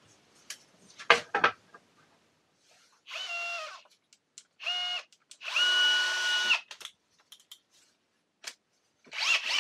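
Electric drill-driver run in three short bursts, its whine dropping in pitch as each burst ends, driving screws up into wood from below. A few sharp knocks come before the runs, and another short burst near the end.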